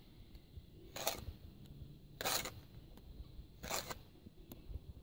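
Steel mason's trowel scraping through wet cement mortar, three short rough scrapes about a second and a half apart.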